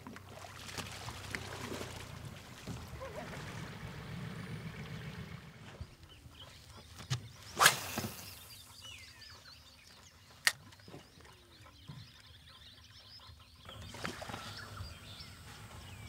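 Water sloshing and splashing as a boat is pushed off a muddy bank into the shallows, then birds calling over still water. About halfway through comes the sharp swish of a fishing rod being cast, the loudest sound, and a single sharp click a few seconds later.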